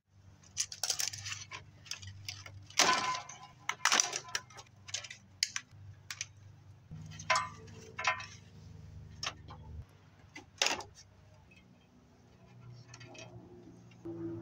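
Clatter of a CRT television's circuit board and plastic chassis being pried and pulled loose by hand: a string of sharp clicks, snaps and rattles. A low steady hum runs underneath.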